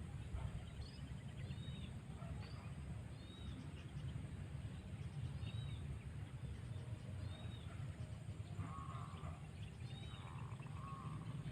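Birds calling over a steady low rumble. A short high chirp repeats about once a second throughout, and a few lower, longer call notes come in near the end.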